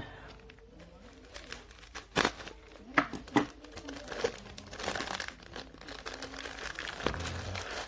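Plastic fish-shipping bag crinkling and crackling as it is handled and opened, with a few sharp crackles in the first half and denser crinkling after.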